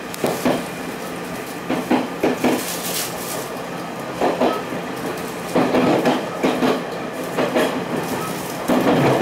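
Railway passenger coach rolling along the track: a steady running hum, with the wheels knocking over rail joints in quick pairs and fours every second or two. A louder cluster of knocks comes near the end as the coach runs over a set of points.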